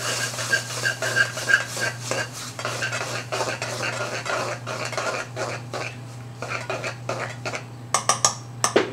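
Metal spoon stirring a thick okra curry in a metal pan, scraping and clinking against the pan so that it rings faintly with each knock. There are a few sharper knocks near the end.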